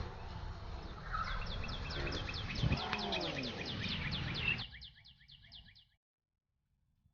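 Forest wildlife: a fast, even trill of high chirps, about eight a second, with two lower calls that rise then fall in pitch about three seconds apart. It all cuts off suddenly near the end.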